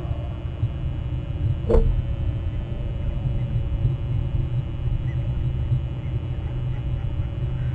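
Steady low rumble, with one short sharp sound about two seconds in.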